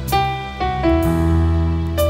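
Worship band playing a slow instrumental passage: sustained chords over an electric bass line, with new notes struck twice.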